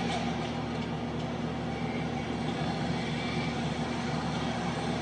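Steady ballpark crowd murmur from a televised baseball game, heard through a TV speaker with a low hum under it.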